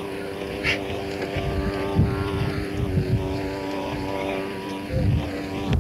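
Small model-aircraft engines droning steadily at a constant pitch, two separate tones held level throughout, over low wind rumble and a few light knocks.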